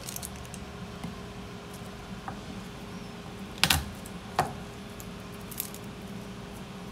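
Garlic cloves being peeled by hand over a wooden cutting board: small scattered clicks and crackles of papery skin, with two sharp knocks on the board a little past halfway, over a steady low hum.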